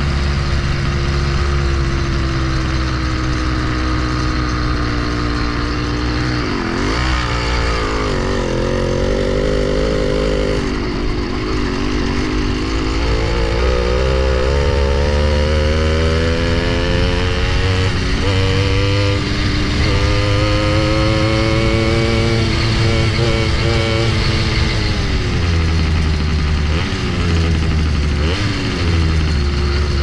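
Small single-cylinder bike engine running under way, its revs rising and falling again and again as the throttle is opened and closed, with the pitch dropping sharply about seven and eleven seconds in and climbing steadily after.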